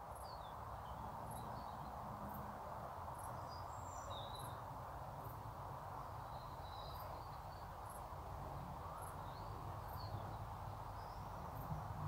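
Outdoor ambience: a steady background hum with small birds chirping faintly now and then, and faint high ticks about once a second.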